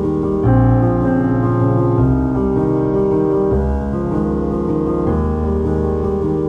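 Instrumental background music: sustained chords that change about every one and a half seconds.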